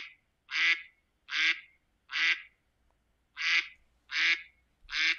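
Duck quacking: a run of short, evenly spaced quacks, about one every 0.7 s, four of them, a brief pause, then three more.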